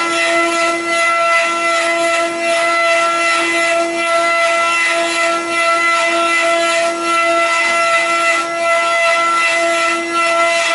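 Multi-head rotary CNC wood carving machine cutting wooden spindles: a steady high whine from the router spindles over an uneven rasping of the cutters in the wood, which dips briefly every second or so.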